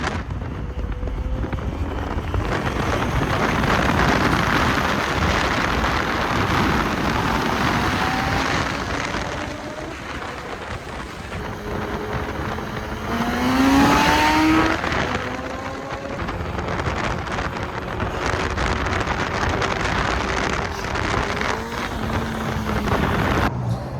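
Motorcycle engines running at a bike meet, with one engine revving up sharply about halfway through.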